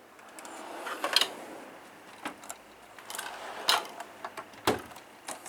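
A steel roller-cabinet drawer sliding on its ball-bearing slides, followed by a series of sharp metal clicks and clinks as tools in it are handled, with one heavier knock about three-quarters of the way through.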